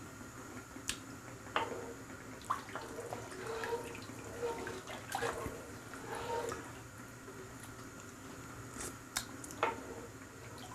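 Light water sounds and scattered small clicks and knocks from a pot of salted water as it is stirred and checked for salt.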